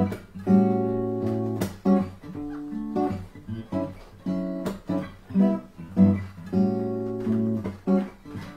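Acoustic guitar strumming chords in a steady rhythm, an instrumental passage of a folk-pop song with no singing.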